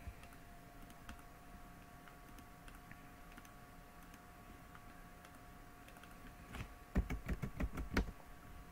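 Computer keyboard typing: a quick run of about ten keystrokes between roughly two-thirds of the way in and a second before the end, over a faint steady hum.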